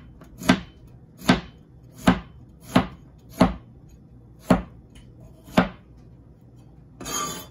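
A Chinese cleaver chopping shark fin melon on a cutting board: seven sharp, even chops about one every 0.7 seconds, then a brief scraping sound near the end.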